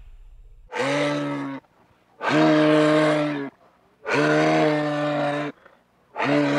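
An animal calling four times, each call about a second long on one steady low pitch.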